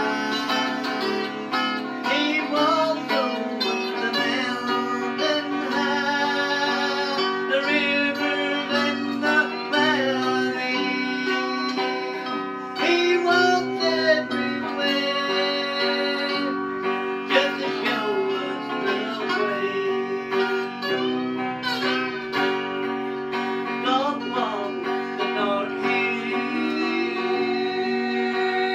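Country-gospel guitar music: an electric guitar played through a small amplifier, lead lines with frequent bent notes.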